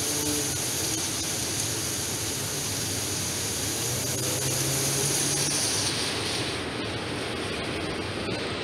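Strong storm wind blowing through the trees, a steady rushing noise, with a high hiss on top that drops away about six and a half seconds in.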